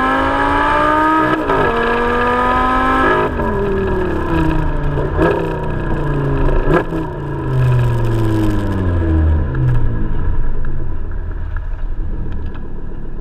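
Audi R8 engine and exhaust heard from a camera mounted on the car. It accelerates hard with its pitch rising, with one quick upshift about a second and a half in. After about three seconds the revs fall away as it slows, with a couple of sharp cracks along the way.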